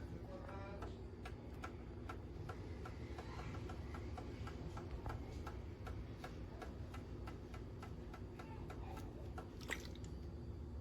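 Steady, regular ticking, about three ticks a second, over a low steady hum, with one sharper click near the end.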